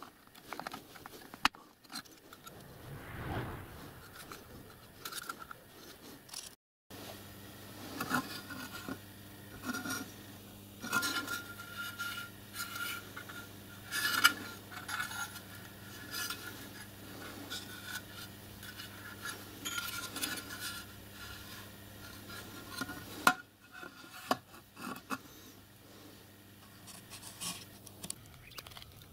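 Clinks, taps and scrapes of aluminium sheet parts and small metal hand tools handled on a steel plate on a workbench, with a low steady hum through most of it.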